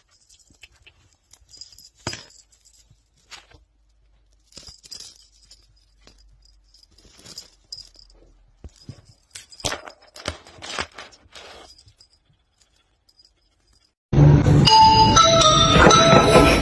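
Faint, scattered clicks and rustles with quiet gaps between them. About fourteen seconds in, loud background music with held, stepping notes cuts in suddenly.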